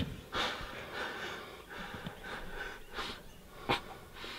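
A person breathing in short, hushed breaths, with a sharp click late on.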